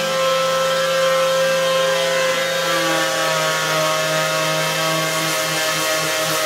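Cordless DeWalt random orbital sander running, its pad sanding the stained faces of raised carved wood letters back to bare wood. A steady motor whine with a low hum that pulses slightly near the end.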